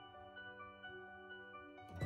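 Faint background music of held notes changing every half second or so.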